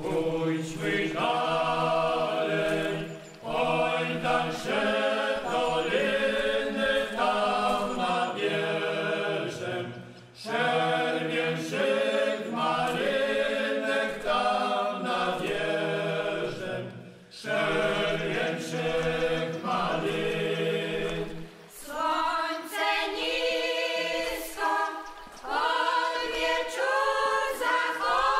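Unaccompanied group singing of a Polish folk song in phrases with short breaks between them. Men's voices carry the first two-thirds, then higher women's voices take over about twenty-two seconds in.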